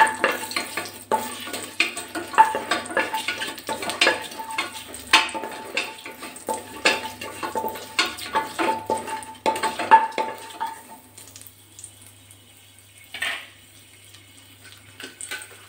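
Slotted wooden spoon stirring whole spices in hot oil, scraping and knocking around an aluminium pressure cooker in a quick, irregular run for about eleven seconds, then a quieter stretch with a couple of single knocks.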